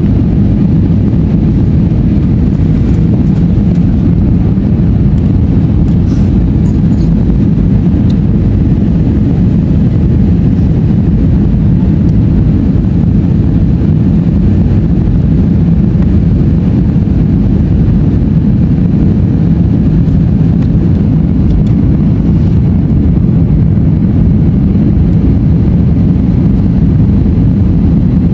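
Steady low rumble of an airliner cabin on descent: jet engine and rushing airflow heard from inside the cabin, with a few faint ticks now and then.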